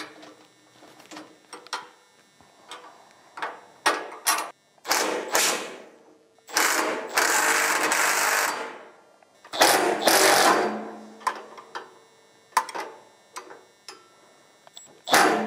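Cordless impact driver rattling in short bursts, the longest about two seconds, as the bolts holding a go-kart's steel roll cage are backed out. Scattered clicks and clanks of metal and tools come in between.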